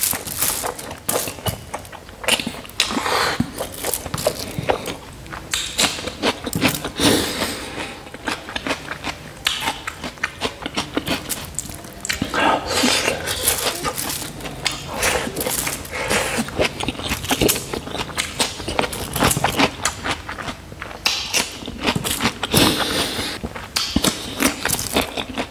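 Close-miked eating sounds: wet chewing and lip-smacking as handfuls of spicy pork and rice are stuffed into the mouth. Fingers squish and scrape the food off a foil-covered table, making irregular clicks and rustles.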